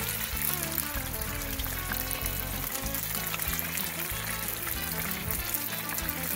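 Background music with a bass line, over the steady crackling hiss of battered chicken pieces deep-frying in oil in a cast iron Dutch oven.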